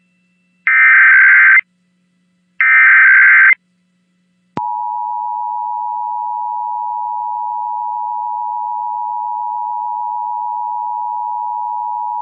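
Two bursts of EAS SAME header data tones, each about a second long and a second apart, then about four and a half seconds in the Emergency Alert System two-tone attention signal (853 and 960 Hz sounded together) comes on and holds steady. This is the start of an Emergency Alert System test broadcast.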